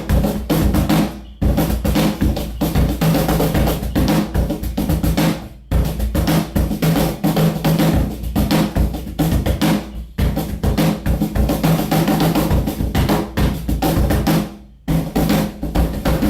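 Wooden cajón played in a fast groove of deep bass strokes and sharp slaps, with a crackly snare buzz. This is the sound the owner blames on too much snare wire and on a top plate whose screws have worked loose, so that the plate slaps against the frame instead of the whole box resonating. The playing pauses briefly three times, at about six, ten and fifteen seconds in.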